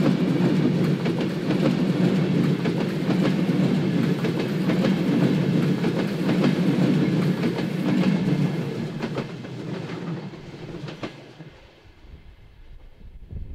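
ÖBB Railjet passenger coaches rolling past close by, a steady rumble of wheels on rail with rapid irregular clicks. It fades away after about nine seconds as the end of the train goes by.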